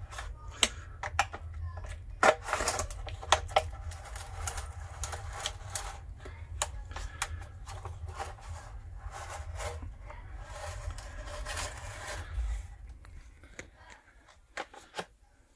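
Pocketknife blade cutting around the rim of a black plastic sump crock: irregular scraping strokes and clicks as the plastic is sawn through, over a low rumble. The strokes die away about three seconds before the end.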